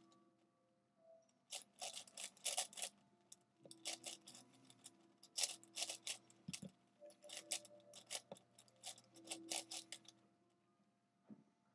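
Plastic pieces of a V-Cube 7x7 puzzle clacking as its layers are turned fast in a speedsolve, in rapid runs of clicks with short pauses, quiet for the first second or so and again near the end.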